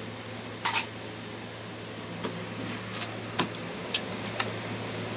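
A steady low electrical hum with several sharp, scattered clicks and ticks over it.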